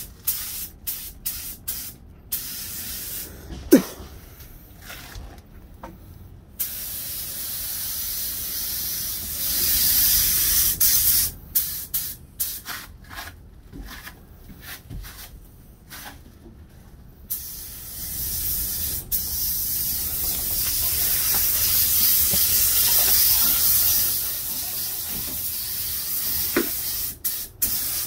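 Paint spray gun hissing in repeated trigger pulls: many short bursts, and two longer passes of several seconds, one about a third of the way in and a longer one in the second half. A brief squeak about four seconds in.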